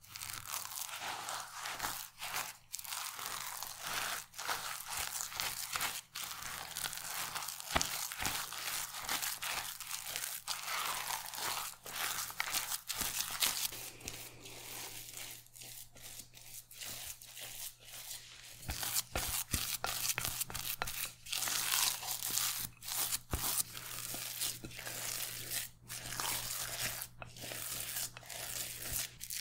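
Silicone spatula stirring and folding a thick, damp mashed-chickpea mixture in a glass bowl: continuous squishing and scraping with many small clicks as the spatula works the mix against the glass.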